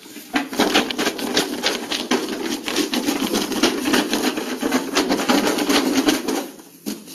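Cardboard box of paper raffle tickets being shaken, a fast, continuous rattle of the tickets against the cardboard that stops about six and a half seconds in.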